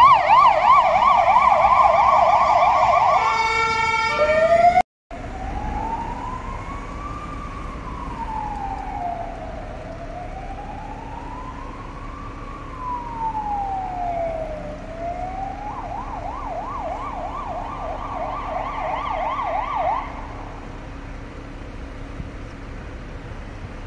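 Ambulance siren on a fast warble, briefly changing tone just before a cut about five seconds in. Then a fainter emergency siren wails slowly up and down, switches to a fast warble near sixteen seconds and stops about twenty seconds in, leaving traffic noise.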